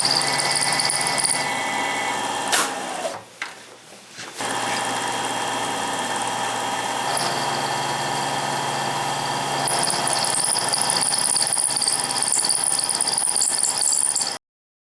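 Knee mill running as its end mill cuts a radius on a small metal hinge part: a steady machine drone with a high-pitched cutting whine that comes and goes. The sound drops away briefly about three seconds in, then runs on and cuts off abruptly near the end.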